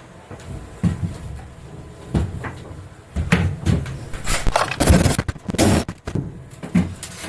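Boat floor panel being worked loose and pulled up once its rivets are drilled out: irregular knocks and scraping, with wood and panel rubbing, thickest from about three to six seconds in.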